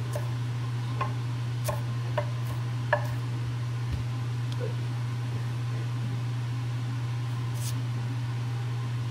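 Chef's knife chopping celery on a Boos wooden cutting board: a few scattered knocks of the blade hitting the board. A steady low hum runs underneath.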